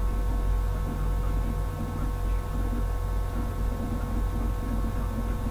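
Steady low rumble with a constant hum of several held tones, running unchanged throughout.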